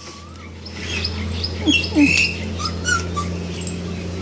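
Puppy whimpering in short, high squeaks, over a steady low hum.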